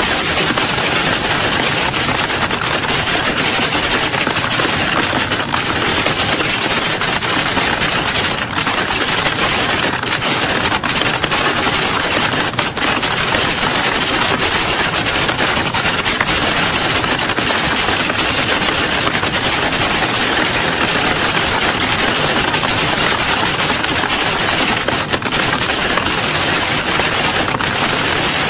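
Many people typing at once in an exam hall: a dense, steady clatter of overlapping key strokes with no pauses.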